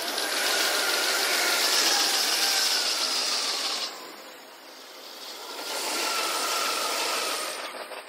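Electric commuter trains running past on the tracks, played back six times faster than normal, so the noise swells up and dies away quickly twice, with a faint falling whine in each pass.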